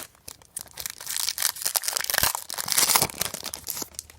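A trading-card pack wrapper being torn open and crinkled by hand, a dense run of crackling and tearing that is loudest in the middle.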